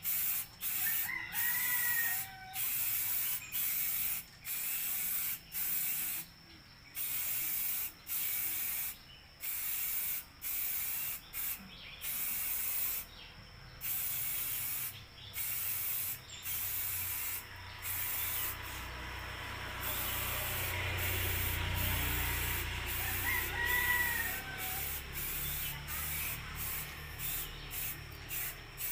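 Aerosol spray-paint can hissing in many short, repeated blasts as black paint is sprayed on in strokes. A rooster crows twice, once near the start and again about three quarters of the way through.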